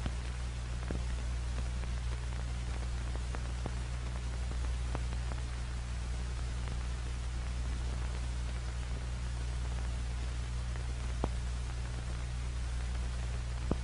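Steady hiss and low hum of an old film soundtrack with no other sound, broken by a few scattered faint clicks.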